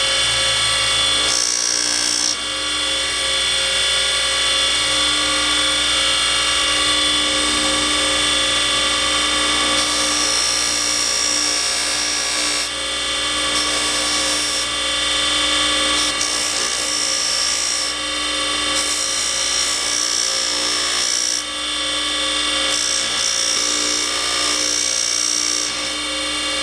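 Bench grinder motor running at a steady pitch with a cloth buffing wheel, while small brass saw screws are pressed against the wheel to polish them; a higher hiss comes and goes as the parts touch the wheel.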